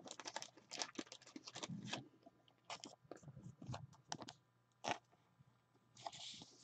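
Faint crinkling, scraping and light clicks of a trading card being handled between the fingers, denser in the first two seconds, with a short rustle near the end.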